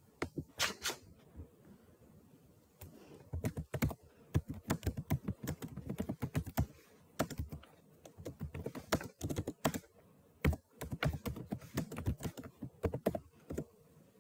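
Typing on a computer keyboard: several runs of rapid key clicks broken by short pauses.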